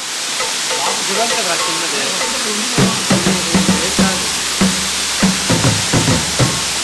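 Steady rushing hiss of a waterfall's falling water. From about three seconds in, background music with a steady funky beat plays over it.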